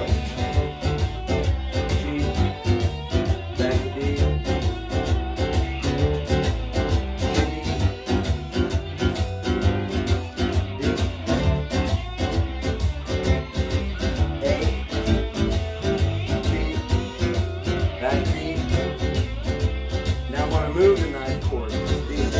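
An acoustic-electric guitar is strummed and picked in a steady driving blues rhythm, playing a 12-bar blues variation in the key of D.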